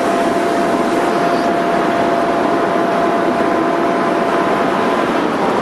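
Excavator running steadily with a constant whine from its engine and hydraulics, without distinct impacts.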